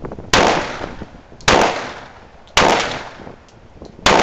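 Pistol fired four times, about one shot a second, each report trailing off over about a second.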